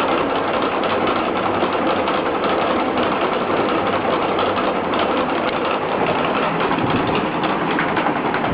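Harbor Breeze Santa Ana ceiling fan running with a steady mechanical noise over a low hum: the unwanted noise the fan has developed.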